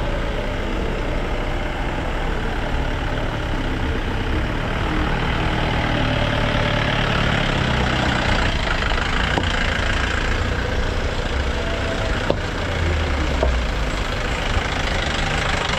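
A motor vehicle's engine running steadily, with a low rumble under a noisy hiss, and a single click about twelve seconds in.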